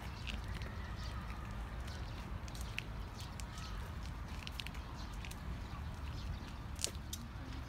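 Outdoor park ambience: a steady low rumble with scattered light clicks, and faint bird calls now and then.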